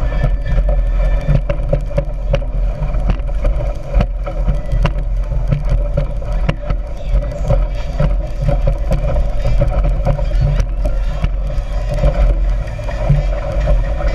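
Speedboat engine running steadily under a heavy low rumble, with frequent short knocks.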